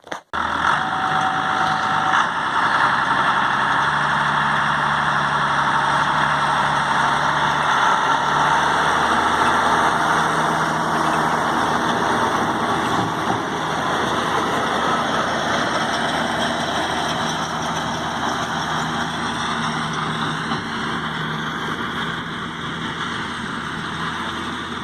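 Tractor engine running steadily, heard from inside the cab, cutting in abruptly at the start and easing slightly toward the end.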